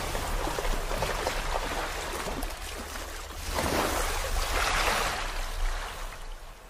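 Wind buffeting the phone's microphone: a steady rushing noise with a low rumble, swelling again about three and a half seconds in.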